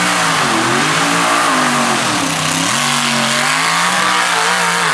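Mud bog truck's engine revving hard, its speed rising and falling several times as the big tires churn through deep mud.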